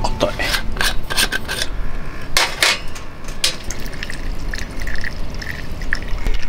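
Brass alcohol burner's tight screw lid being twisted off, with metallic clicks and scrapes, then alcohol fuel trickling from a fuel bottle's nozzle into the burner about four seconds in.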